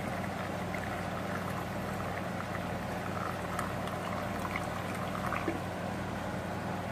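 Hot water poured in a steady stream from a glass coffee carafe into a plastic bowl around metal votive molds, to loosen wax candles stuck in the molds.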